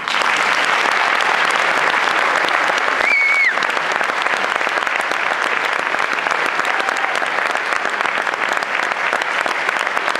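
Audience applauding, starting abruptly and holding steady and dense throughout. One short high whistle cuts through about three seconds in.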